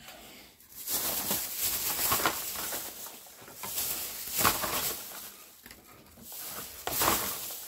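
Rustling and handling noises from hands moving things about on a tabletop, in uneven swells of hissy noise with a few light clicks.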